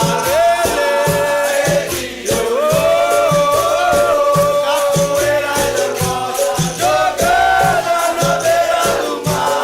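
Capoeira roda music: voices singing held, gliding lines together over a steady drum beat, with the rattle of berimbaus' caxixi shakers.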